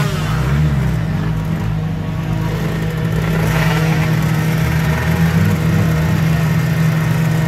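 Motocross dirt bike engines running under load as bikes struggle through deep mud, with a steady engine note and a burst of revving about halfway through.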